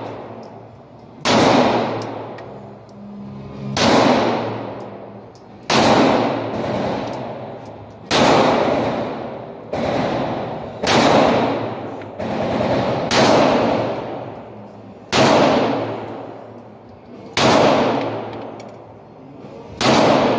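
Semi-automatic pistol fired in slow, deliberate single shots, about nine over the stretch, roughly two seconds apart. Each shot is followed by a long echoing decay from the enclosed indoor range.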